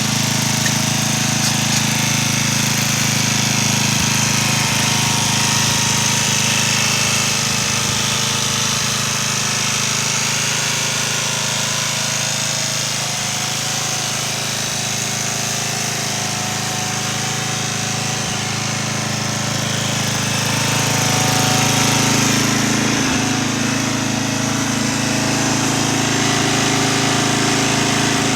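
Ford R11 riding lawn mower's engine running steadily, growing a little louder around twenty seconds in.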